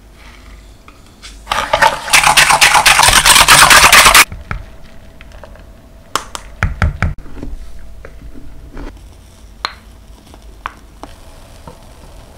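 Kitchen utensils working against a plastic mixing bowl: a loud, rapid scraping rattle for about three seconds, then a few knocks and scattered light clicks of bowl and utensils being handled.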